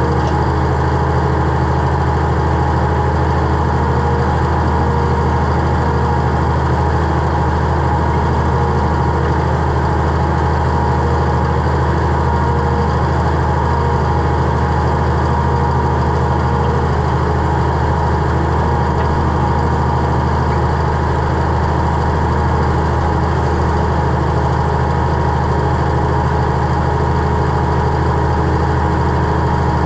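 Engine of the digging machine running at a steady, unchanging speed.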